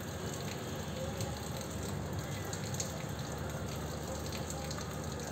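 Steady rain falling in a thunderstorm, an even wash of noise with no thunderclap.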